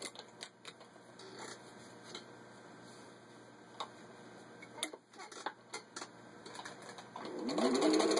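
Singer 15-91 sewing machine with its gear-driven motor: scattered light clicks and taps for most of the time, then about seven seconds in the motor starts and runs up to speed, stitching through thick layers of denim.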